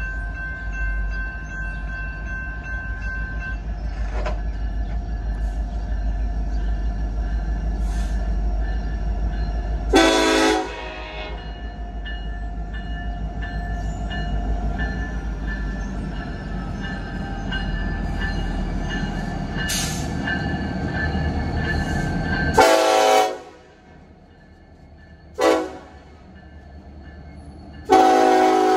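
Norfolk Southern SD70ACe diesel locomotive's air horn blowing four blasts: one about a third of the way in, then a longer one, a short one and another long one near the end. Under them is the low rumble of the approaching train, which drops away about two-thirds through.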